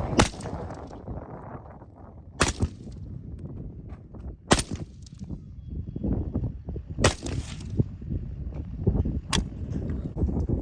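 North Korean Type 63 SKS, a 7.62×39 mm semi-automatic rifle, fired five times at an even pace of about one shot every two and a half seconds.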